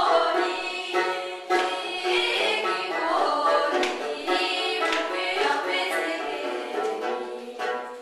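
Background music with singing over sustained held notes.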